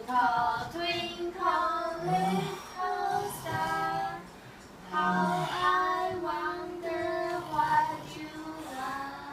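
Children singing a song in phrases, with a short pause about halfway through.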